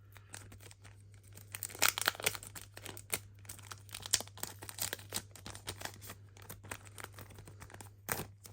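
Foil trading-card booster pack being torn open and its wrapper crinkled: irregular crackling and rustling, loudest about two seconds in and again near the end.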